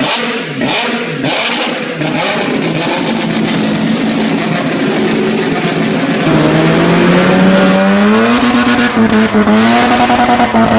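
Rotary-engined car revving: after a couple of seconds of rhythmic pulsing, the engine note climbs in pitch from about six seconds in, then holds high and stutters rapidly near the end.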